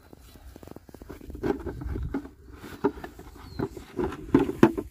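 Irregular knocks and scraping as a plastic tub holding bamboo pipe traps is set down and handled on a dirt bank, with the sharpest knocks near the end.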